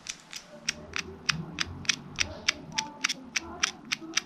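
Clock ticking imitated as a foley effect by clicking the winding key from the back of a clock close to the microphone: a run of sharp ticks, about four a second.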